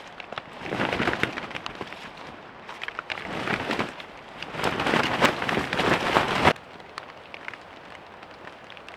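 Rain falling in a steady patter of drops, with louder spells of heavier pattering that cut off suddenly about six and a half seconds in.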